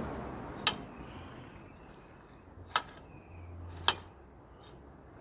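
Bonfire burning, with three sharp pops from the fire over a faint low background.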